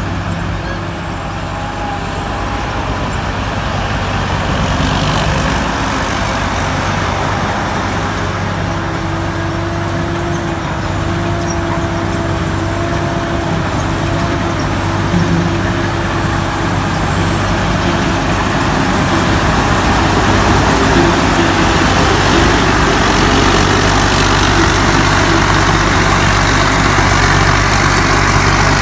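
Amnuay Kanchang combine harvester running: a steady engine drone with a high whine that drifts slowly up and down in pitch. It grows louder after about the middle.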